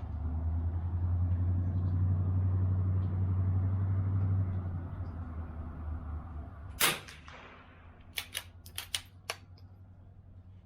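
A steady low rumble for the first few seconds, then a single .22 LR shot from an Anschutz Model 64 MPR rifle firing Lapua Center-X, with a short echo, about seven seconds in. A quick series of sharp clicks follows about a second later.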